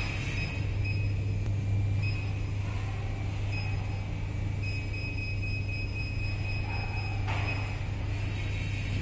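Steady low electrical hum, with a faint high-pitched whine that comes and goes for a second or two at a time. A brief soft knock about seven seconds in.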